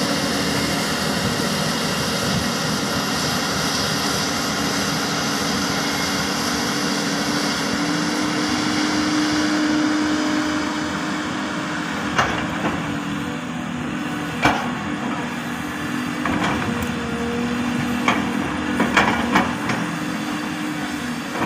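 Large Hyundai 330LC crawler excavator's diesel engine running steadily under load, with a louder hiss for the first half. In the second half come a handful of sharp knocks, a few seconds apart and then closer together near the end.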